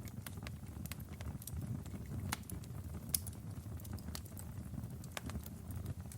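Wood fire in a fireplace crackling, with sharp irregular pops over a steady low rumble of the flames; the loudest pops fall a little past two and three seconds in.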